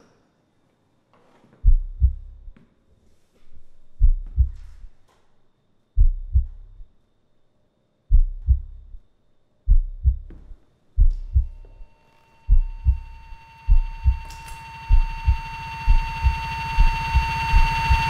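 Heartbeat sound effect: a low double thump about every two seconds that comes faster and faster from about ten seconds in. Steady high ringing tones and a hiss come in with the faster beats and swell louder.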